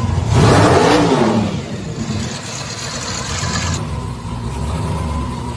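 Twin-turbo LS V8 in an OBS pickup revved once, the pitch climbing and falling back over about a second, then settling to idle. A steady hiss runs over the idle and cuts off suddenly a little before four seconds in.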